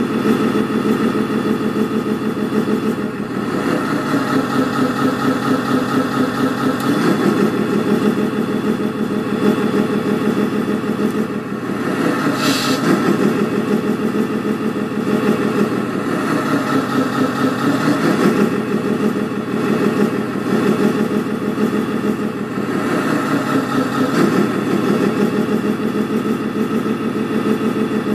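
Sound module of a 1/14-scale Scania R620 RC truck playing a simulated truck diesel engine, running with its pitch dropping and rising again every few seconds. A brief high hiss about halfway through.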